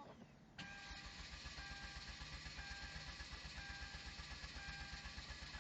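A Hyundai Genesis Coupe 2.0T's engine cranking on the starter without catching: a fast, even chugging that starts about half a second in and stops near the end, with a repeating electronic warning chime over it. This is the crank-but-no-ignition fault the car has.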